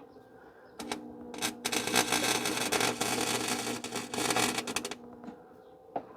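Electric arc welder tack welding a steel exhaust hanger onto a muffler. The welder hums, the arc sputters twice briefly about a second in, then crackles steadily for about three seconds and cuts off.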